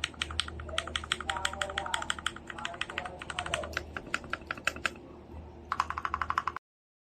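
Typing on a mechanical keyboard with Gateron Pro Milky Yellow linear switches: a rapid run of keystrokes, several a second, quickening near the end, over a low steady hum, then cutting off suddenly.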